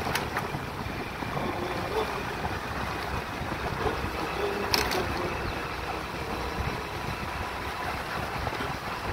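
Wind rushing over the microphone of a phone carried on a moving scooter, with the scooter's running engine and road noise underneath; a single sharp click a little past halfway.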